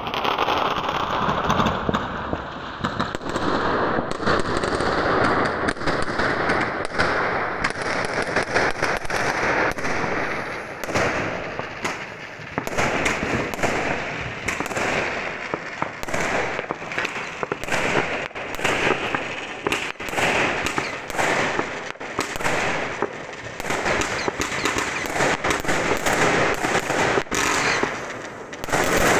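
Many New Year's fireworks going off at once: a continuous barrage of overlapping bangs and crackles.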